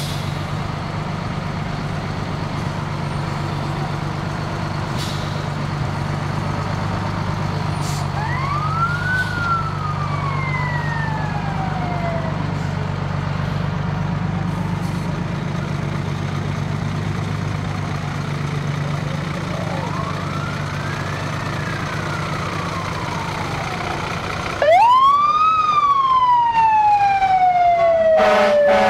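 Fire engines running steadily close by. A siren rises and falls twice, fainter. Then a much louder siren winds up sharply and slowly falls away, and near the end a brief horn blast sounds over it.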